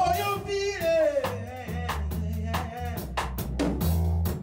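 Band music with a drum kit keeping a steady beat over a sustained bass, and a voice or lead instrument gliding in pitch during the first second or so.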